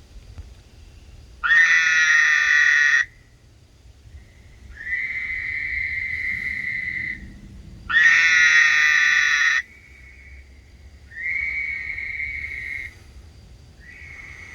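Frog mating calls: two loud, harsh calls of about a second and a half each, at about 1.5 s and 8 s, alternating with softer, steadier whistle-like calls in between and near the end.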